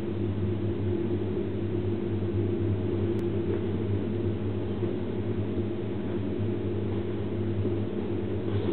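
Homedics shiatsu massage cushion running: a steady electric motor hum from its massage mechanism behind the leather cover. Some rustling near the end as the cover is handled.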